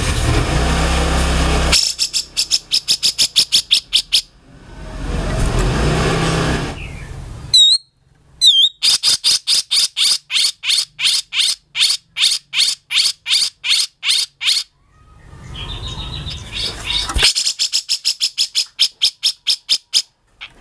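Grey-cheeked bulbul (cucak jenggot) calling: rough, harsh stretches alternate with fast rattling series of sharp notes, about six a second. Two quick swooping whistles come about eight seconds in.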